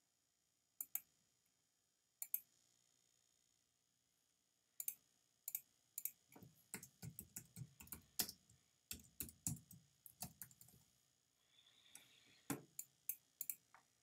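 Faint computer keyboard typing and mouse clicks: two single clicks, then a quick run of keystrokes through the middle, and a few more clicks near the end.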